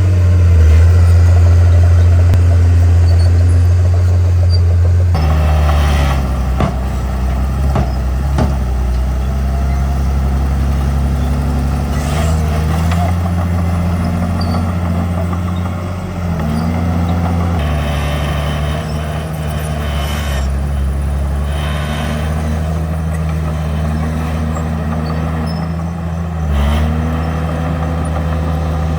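Heavy diesel engine of earthmoving machinery working, its pitch dipping and rising several times as the load changes, with a few brief bursts of noise over it.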